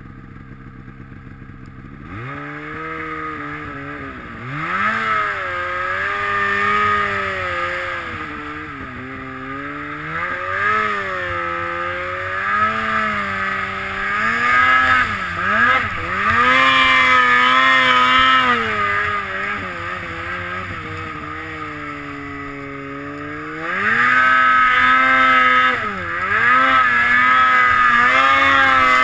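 Snowmobile engine under throttle while riding, its pitch rising and falling over and over as the throttle is worked. It is low for about the first two seconds, then picks up, with the loudest pulls near the middle and toward the end.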